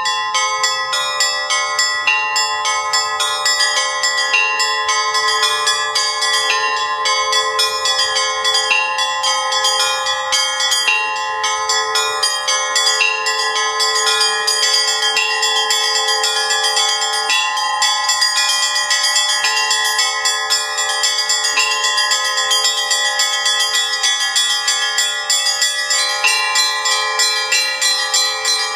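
Russian Orthodox church bells rung in the Russian style: a rapid, rhythmic peal of several bells, struck several times a second, their many tones ringing over one another.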